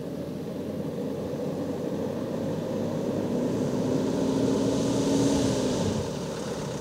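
A 4x4 pickup truck driving slowly toward and past, its engine and tyres growing louder, with a steady engine hum that fades about six seconds in.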